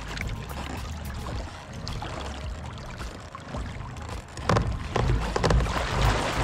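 Water lapping around a kayak with wind buffeting the microphone as a low rumble, growing louder and gustier about four and a half seconds in.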